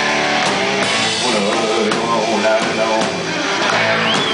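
Live rock band playing, with drum kit, guitar and keyboard.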